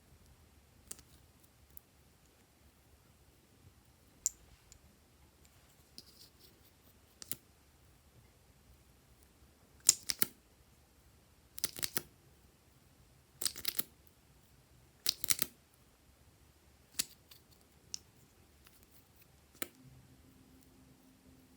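Glossy slime being pressed and squeezed by hand, giving sharp sticky clicks and pops: scattered single clicks, with four crackly bursts of several pops each in the middle.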